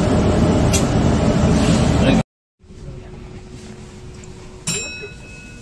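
Loud, steady running noise of a bus travelling along a concrete guided busway, heard from inside. It cuts off abruptly about two seconds in, giving way to a much quieter cabin hum, and near the end a single sharp chime rings and fades.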